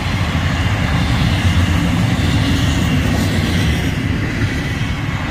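Double-stack container cars of an FEC intermodal freight train rolling past: a steady, very smooth rumble of steel wheels on rail, with no regular clicks.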